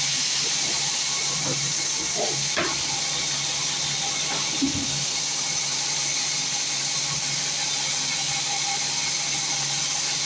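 Small wood sawmill machinery running steadily: a constant hissing noise over a low motor hum, with a couple of brief knocks a few seconds in.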